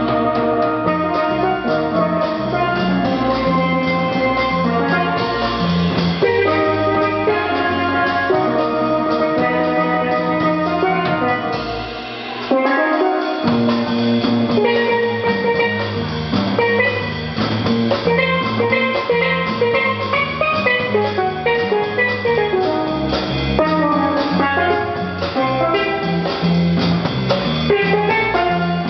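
Steelpan solo played with rubber-tipped mallets in quick runs of ringing notes, accompanied by a drum kit and an upright double bass. About twelve seconds in, the bass and drums drop out for about a second while the pan carries on, then the full band comes back in.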